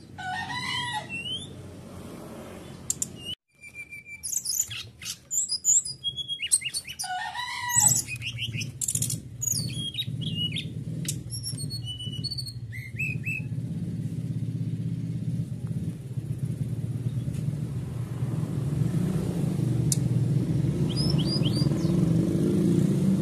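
Brown-chested jungle flycatcher singing a run of quick chirps and whistling notes, thickest in the first half and thinning out after about 14 s, with a few last phrases near the end. A low engine drone builds underneath from about a third of the way in and gets louder toward the end.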